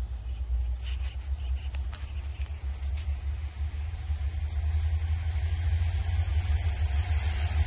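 Low, steady rumble of a diesel freight train, with a few faint clicks between about one and three seconds in.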